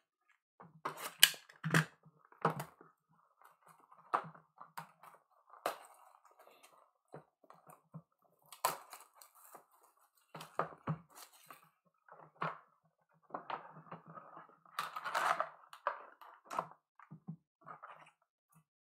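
Plastic shrink wrap crinkling and tearing as a trading-card hobby box is unwrapped and opened, followed by the card packs rustling as they are pulled out of the box. Irregular crackles and clicks, with the busiest stretch a little after the middle.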